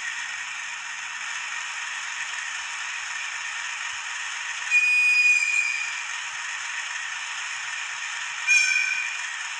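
Sound module of a Kato HO-scale DD51 diesel locomotive model playing through its small onboard speaker: a steady engine-running hiss with no bass, and a loud horn blast about five seconds in lasting about a second, then a shorter horn toot near the end.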